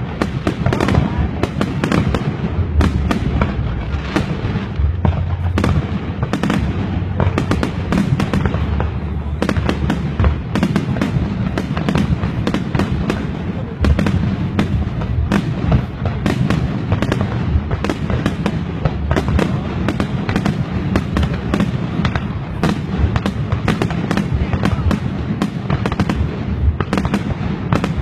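Fireworks going off in rapid, continuous succession: a dense stream of bangs and crackles over a deep rumble.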